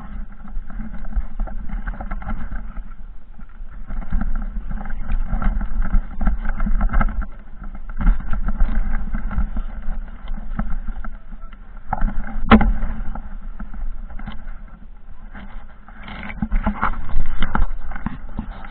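Off-road motorcycle engine revving in repeated surges as it climbs a steep trail hill, with a sharp knock about two-thirds of the way through.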